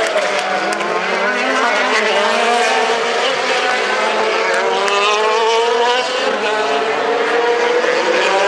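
Several DTM touring cars' 4.0-litre V8 racing engines running together as a pack. Their overlapping engine notes glide up and down in pitch as the cars accelerate and lift.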